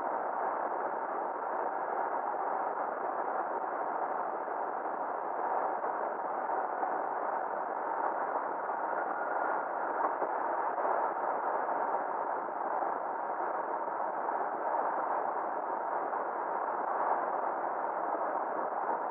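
Steady, muffled rushing of road and wind noise from a Ford F-350 pickup driving at speed, with a faint constant hum underneath.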